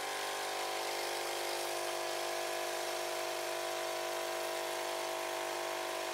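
Nespresso capsule coffee machine's vibratory pump buzzing steadily as coffee pours from the spout into a mug.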